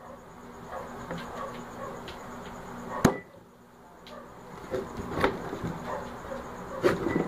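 Kitchen knife cutting through crispy fried chicken on a plastic cutting board, with the crackle of the crisp skin giving way under the blade. There is a sharp knock about three seconds in and lighter knocks later as the blade strikes the board.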